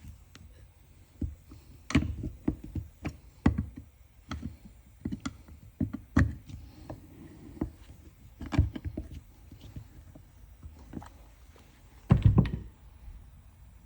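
Irregular clicks and knocks of metal parts being handled, with a louder half-second low rushing burst near the end.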